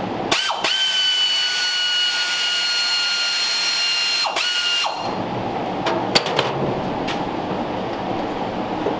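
Power tool whining steadily for about four and a half seconds, spinning up at the start and winding down at the end, as a bolt is run out while the transmission is removed. A few short metal clicks follow.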